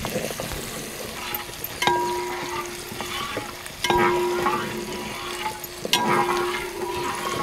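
Metal ladle stirring salted, spiced water in a large aluminium pot, with a steady swishing of the water. Three times, about two seconds apart, the ladle knocks against the pot and the pot rings on for a second or more.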